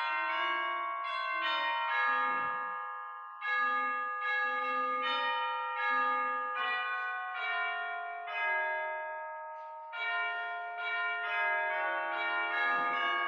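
Church bells ringing: a run of struck bell notes, several a second, each ringing on and overlapping the next.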